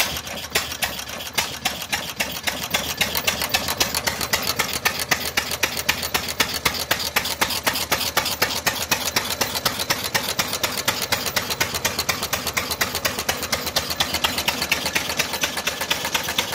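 Bovaird & Seyfang 5 hp single-cylinder hit-and-miss engine running, with a steady fast rhythm of sharp exhaust beats and mechanical clatter.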